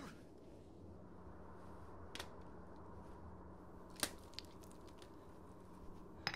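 Sharp blows of a hammer striking a person, one about every two seconds, over a low steady hum.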